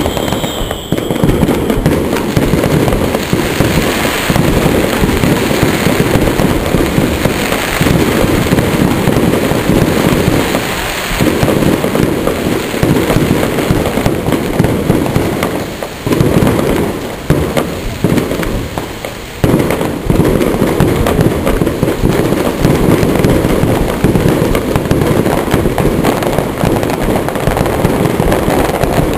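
Rapid, continuous barrage of fireworks bursting, booms and crackling overlapping with hardly a gap, with a few short lulls about halfway through.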